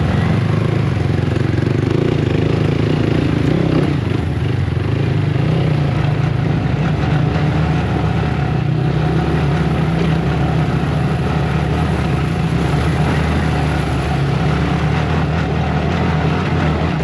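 Yamaha MT-15 single-cylinder motorcycle with an aftermarket Akrapovic exhaust running at a steady cruise, its even engine note mixed with road and wind noise.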